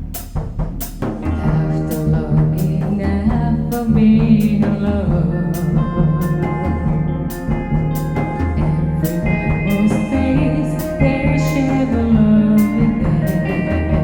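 Live band music: a drum kit keeping a steady beat under a keyboard bass line, with sustained keyboard and guitar notes and possibly a singing voice.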